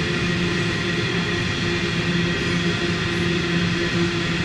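Coal hopper wagons of a heavy coal train rolling past on the rails: a steady rumble and hiss with a continuous low droning tone.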